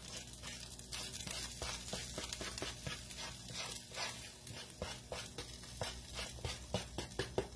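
Flour being spooned from a paper plate into hot pan drippings in a skillet: a soft frying sizzle with scattered crackles, and light scraping and tapping of the spoon against the plate, with a few sharper ticks near the end.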